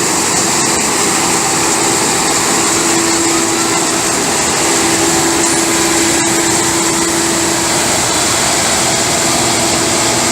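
Engine of heavy farm machinery running steadily, with a constant hum and no change in speed.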